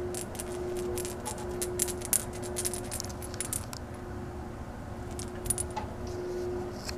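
Light, rapid jingling and clicking, dense for the first half and then only now and then, over a steady hum.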